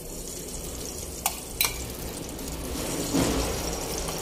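Metal spoon scooping melted ghee out of a steel bowl into an aluminium pressure cooker, with two sharp clinks of spoon on metal a little after the first second and a stretch of scraping about three seconds in.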